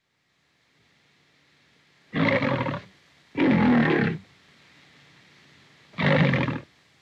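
Lion roaring three times, each roar under a second long: the first two close together, the third about two seconds later. A faint steady hiss runs underneath.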